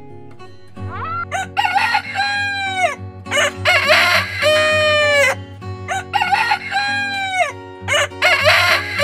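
Rooster crowing several times, each crow ending in a long note that falls in pitch, over background music with sustained tones.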